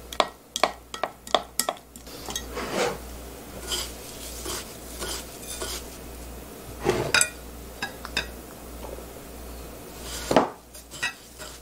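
Kitchen utensils clinking and tapping as skewered quail eggs are coated for frying. A metal spoon and wooden skewers knock against a ceramic plate, a glass measuring cup and a glass bowl. The quick clicks in the first two seconds give way to a few louder knocks about three, seven and ten seconds in.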